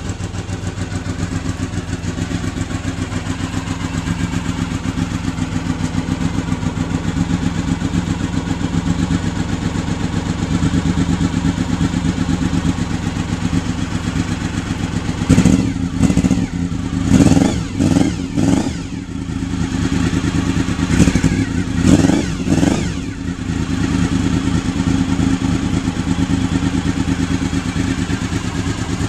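1996 Honda VFR750's 90-degree V4 running through an aftermarket Staintune stainless slip-on silencer: a steady idle, broken about halfway through by a string of quick throttle blips in two groups, then settling back to idle.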